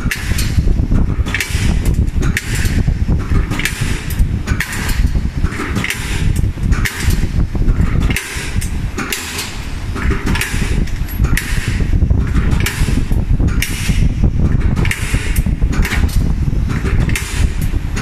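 Automatic hydraulic tube-punching machine piercing holes in a square steel tube: a sharp punch stroke about once a second, regular throughout, over a steady low machine rumble.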